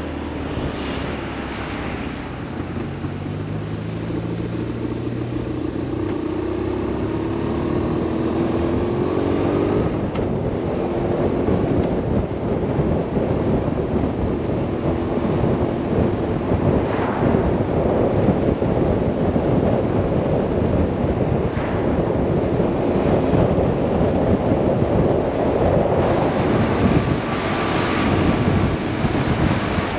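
BMW R 1150 RS boxer-twin engine running under way, its note rising as the bike accelerates over the first ten seconds. Wind rushing over the microphone grows louder as speed builds and soon covers most of the engine.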